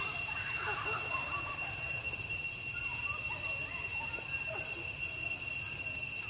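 Steady, high-pitched insect drone, with faint short chirps and squeaks underneath that are busiest in the first second or so.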